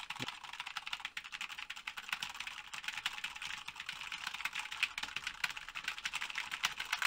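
Fast, continuous typing on a computer keyboard: a dense run of key clicks, several strokes a second.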